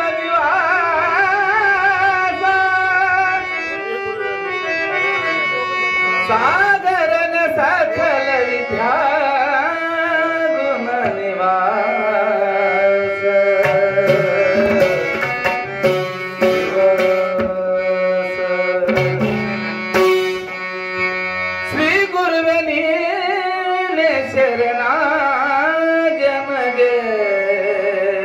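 A man singing a devotional bhajan, accompanied by harmonium and tabla. The voice pauses for several seconds in the middle while the harmonium holds steady notes and the tabla keeps the rhythm.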